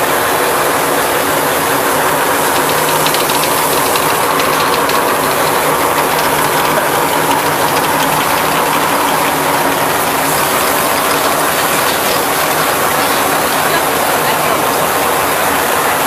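Semi-automatic rotary bottle washing machine running, its motor-driven brush rollers spinning. It gives a steady mechanical running noise with a low hum underneath.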